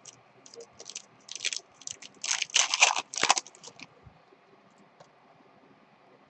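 Trading cards and their foil pack wrappers being handled, crinkling and scraping in a quick run of short scratchy bursts, loudest a little past two seconds in, then dying away after about four seconds.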